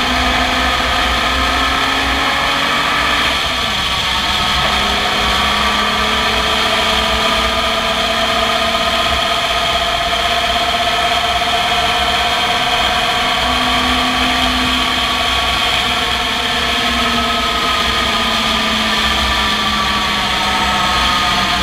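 Race car engine running hard on track, heard onboard from the open cockpit over steady wind and road rush. Its pitch drops suddenly a few seconds in at a gear change, then climbs slowly, eases off around the middle and rises again near the end.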